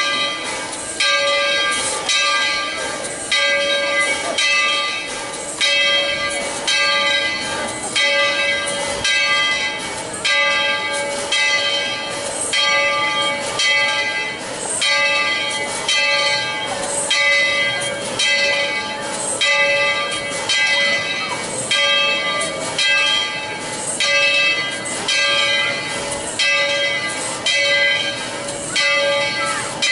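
Steam locomotive's bell ringing steadily, about one stroke a second.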